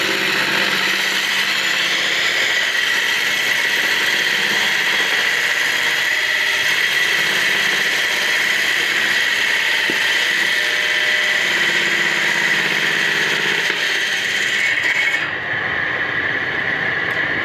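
Small bench-mounted circular saw running steadily with a high whine while wood is fed through it; the hiss in the top of the sound drops away about fifteen seconds in.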